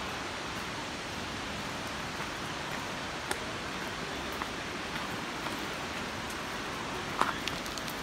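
Steady rushing noise of a waterfall's falling water, with a few faint scattered clicks, the sharpest near the end.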